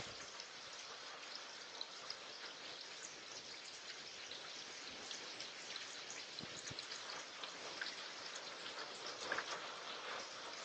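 Heavy rain from a hurricane rain band falling steadily, with many small drops ticking sharply close to the doorbell camera's microphone.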